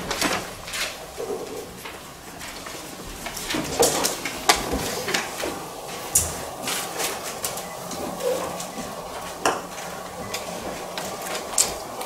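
Irregular light clicks, taps and knocks from papers and objects being handled around a conference-table microphone, over low room hiss.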